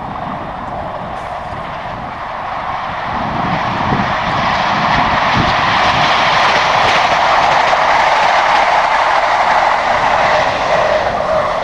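Passenger train passing close by: a rushing rumble of wheels on rails that builds from about three seconds in, is loudest through the second half, and starts to fade at the very end.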